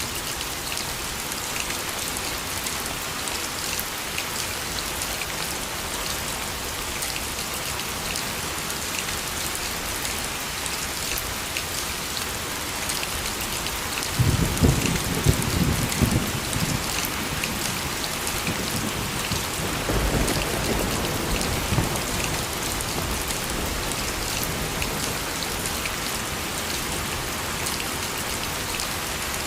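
Steady rainfall with many small drop patters, and thunder rumbling twice about halfway through, the second rumble weaker.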